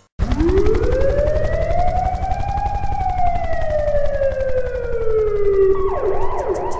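A siren-like wail that rises over about two and a half seconds and then slowly sinks, over a fast low pulsing. Near the end it breaks into quick wobbling up-and-down glides.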